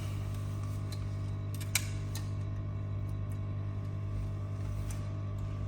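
Steady low hum with a few small clicks, the sharpest about two seconds in.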